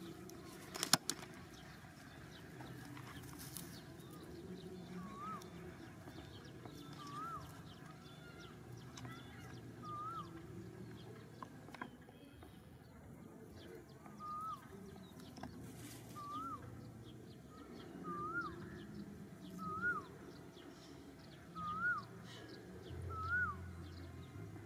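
An animal's short, squeaky call that rises then falls in pitch, repeated about a dozen times every second or two over a low rustle, with a sharp click about a second in.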